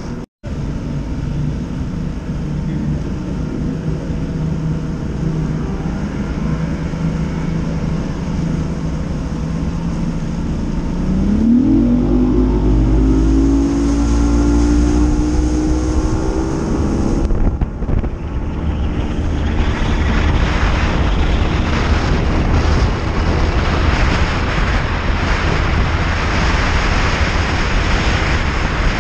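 Bass boat's outboard motor idling, then throttled up about eleven seconds in, its pitch climbing steadily. From about twenty seconds on, a loud rush of wind and water takes over as the boat runs at speed.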